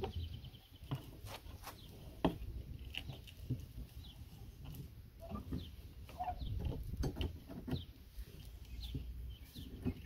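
Steel wrench clicking and knocking against the nut and metal body of a corroded RV storage-bin cam lock as it is worked loose for removal. The clicks are sharp and irregular.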